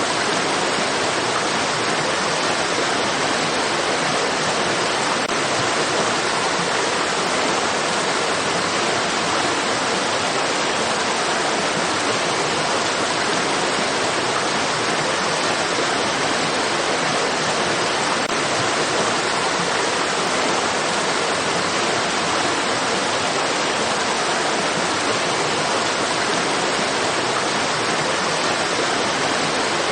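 Running stream water: a steady, even rush with no change in level or texture.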